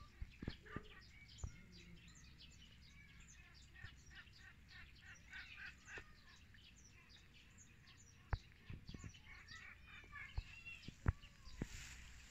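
Faint chirping and twittering of small birds, with a few sharp clicks.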